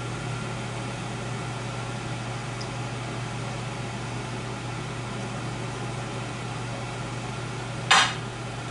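A steady low electrical hum with a faint hiss over it. Near the end comes a single short rustling clatter.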